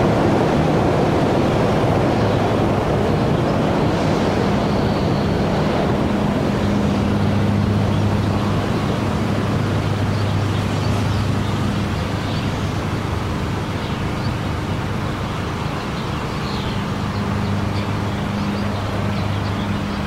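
Small monorail car running up its rail, a steady rushing noise with a low hum that comes and goes, slowly getting quieter as it moves away.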